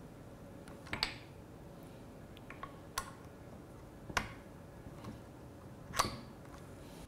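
A quarter-inch TRS jack plug being pushed into and seated in the input on the back of a studio monitor speaker: four faint, sharp clicks and knocks about one to two seconds apart, with a few softer ticks between.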